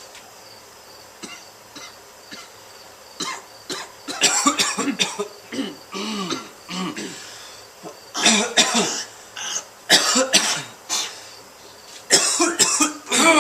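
A person coughing hard in repeated fits, several harsh coughs at a time, the fits a second or two apart.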